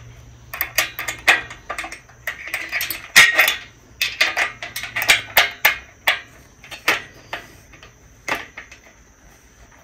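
A small stamped open-end wrench and an Allen key clinking against the nut, bolt and steel rails of a bed-frame joint as the bolt is tightened. The result is a run of irregular sharp metal clicks and taps that thins out after about seven seconds.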